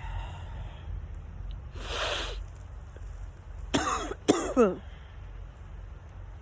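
A woman breathes in sharply, then sneezes twice in quick succession, the second sneeze trailing off in a falling voice.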